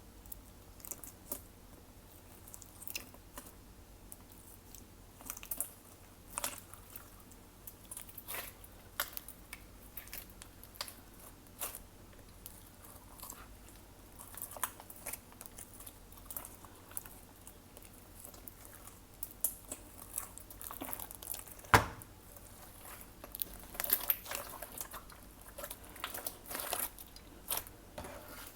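Glossy slime being squished and kneaded by hand, making irregular sticky clicks, pops and crackles, with one sharper, louder pop about 22 seconds in.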